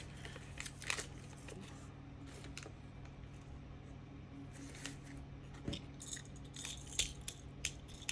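Sparse small clicks and taps of hard plastic Beyblade X parts being handled and fitted together, a few sharper ones about a second in and again near the end.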